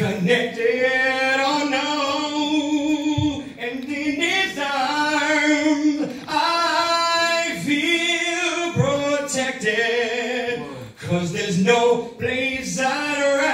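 Man singing a gospel song, with long held notes that bend in pitch and short breaks between phrases.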